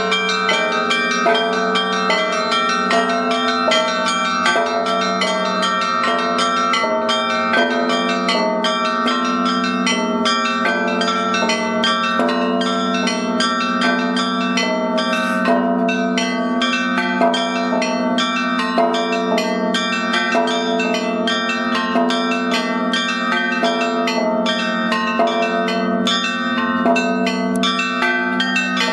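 Russian church bells rung together in a continuous peal: quick, overlapping strikes of smaller bells over the steady, ringing hum of a deep bell.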